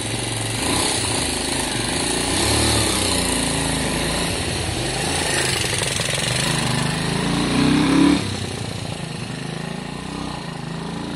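Lexmoto Valiant motorcycle engine running as the bike is ridden off, the revs building to about eight seconds in and then dropping off sharply. After its carburettor conversion to a pod air filter it is running on the automatic choke, which is disconnected, and is short of power and sounding "a bit iffy". The owner suspects it needs upjetting and may be sucking in too much air.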